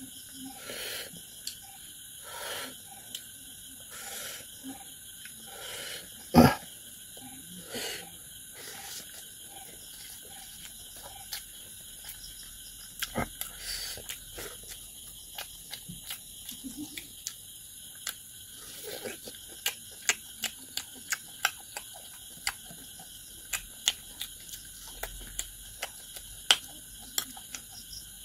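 Close-up eating sounds of a man chewing a mouthful of rice and food, with wet lip-smacking and many short mouth clicks. One sharp, much louder click comes about six seconds in.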